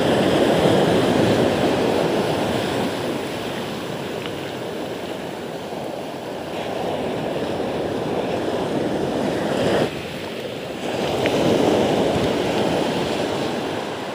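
Sea surf breaking and washing up a beach, a rushing noise that swells and ebbs with each wave. It is loudest at the start and again about eleven seconds in, just after a brief lull.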